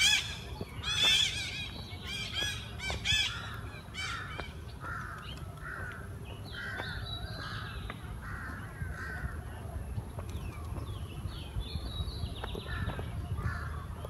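Birds calling: a cluster of loud, harsh calls in the first four seconds, then a steady series of shorter, repeated calls. A low steady rumble runs underneath.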